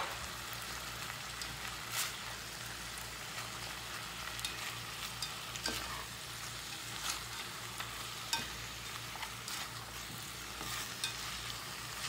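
Chicken pieces with onion, garlic and tomato paste sizzling in a pot on a gas stove, a steady hiss. A spatula stirring through the pot adds scattered scrapes and taps.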